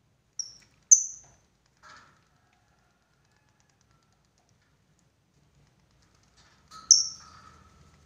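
Caged Fischer's lovebirds giving short, sharp, high-pitched squawks: two in quick succession near the start and a softer one about two seconds in. After a pause, a loud squawk with a brief trailing chatter comes near the end.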